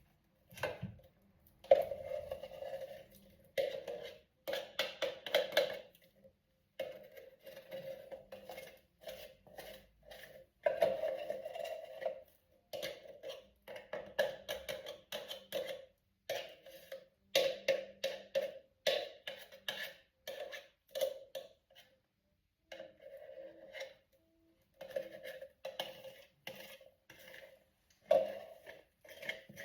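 Clinking and clattering of dishware with a ringing tone, in quick irregular bursts broken by short pauses.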